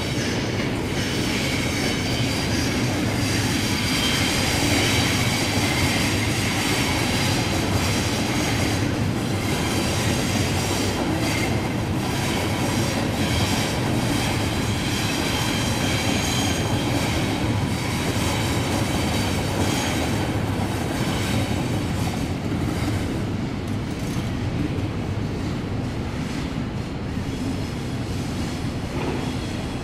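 Double-deck electric suburban trains running through the station tracks: a steady rumble of wheels on rail with clicks as wheels pass rail joints. A high squeal rides over it, strongest about five seconds in.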